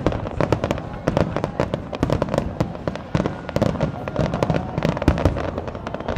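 Fireworks display: a fast, continuous barrage of aerial shell bursts and crackling, many bangs a second with no pause.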